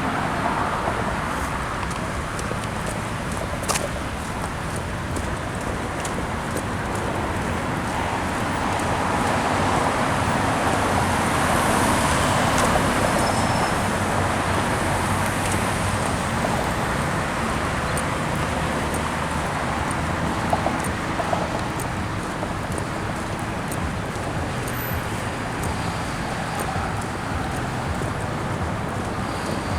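Road traffic: a steady wash of car engines and tyre noise, swelling as a vehicle passes about a third of the way in.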